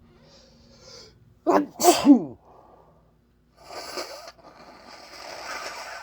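A person sneezes once, loudly, about one and a half seconds in, after a short intake of breath. The voiced end of the sneeze falls in pitch. Noisy breathing follows.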